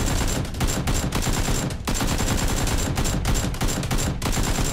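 Rapid automatic gunfire sound effects, a dense run of shots broken by short gaps about two and four seconds in, dubbed over a Nerf blaster firefight.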